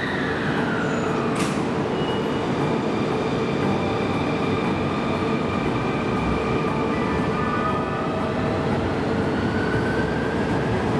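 A Sotetsu electric train moving through the station. Its traction motors whine, falling in pitch over the first second and a half and rising again near the end, over steady running noise, with one sharp click about a second and a half in.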